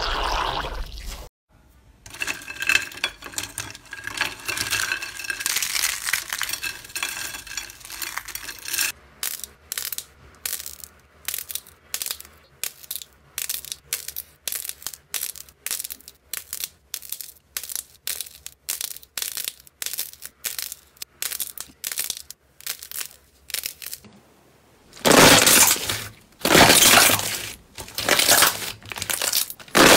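Slime and modelling clay being squeezed and kneaded by hand. A dense stretch of fine crackling gives way to sharp, crisp clicks about twice a second as soft clay is pressed in the fingers. Near the end come loud wet squelches, about one a second, as clear slime is pressed with both palms.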